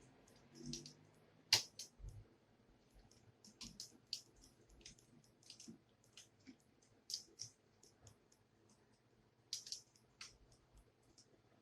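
Scattered light clicks and taps of small plastic and metal laptop parts being handled and pried during disassembly, with a sharper click about a second and a half in.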